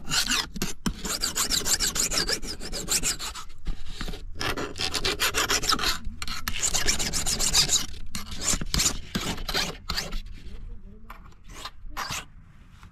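Flat metal hand file rasping back and forth along the steel blade of a grass slasher, sharpening its dull edge. Long, closely repeated strokes for about eight seconds, then shorter separate strokes that thin out and grow quieter near the end.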